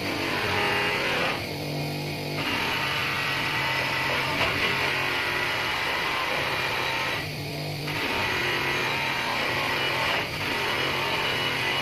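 Electric bench buffing motor running with a steel shotgun barrel pressed against its buffing wheel, a steady rasping hiss of the wheel polishing the barrel. The hiss eases off a few times as the barrel lifts away, leaving only the motor's steady hum.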